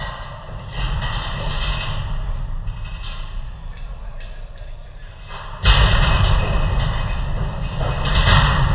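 Sounds of an indoor football game: players' voices and the thud of the ball, over a steady low rumble that turns suddenly louder about five and a half seconds in.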